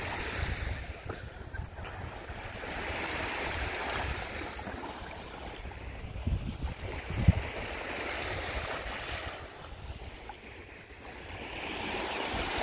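Small waves breaking and washing up on a sandy shore, the surf swelling and fading every few seconds, with wind buffeting the microphone. A brief thump about seven seconds in.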